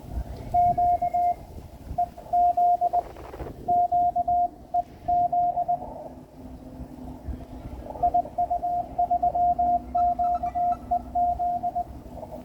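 Morse code (CW) from an amateur radio transceiver: a single tone keyed on and off in dots and dashes, in two runs with a pause of about two seconds in the middle. A fainter, lower-pitched second CW signal sounds under it in the later half.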